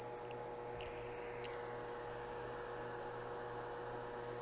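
Steady electrical hum with one constant tone over faint room noise, with a few faint ticks in the first second and a half.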